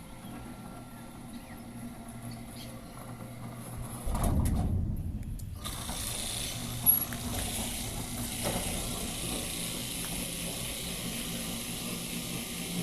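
Electric fan running with a steady hum while its blade makes a noise it shouldn't. About four seconds in a loud low rumble lasts about a second and a half, after which a steady rush of air joins the hum; one sharp click comes near the seventh second.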